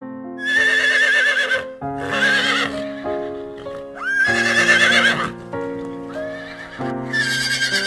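Horse whinnying several times, each neigh a high, shaking call of about a second, over background music with sustained notes.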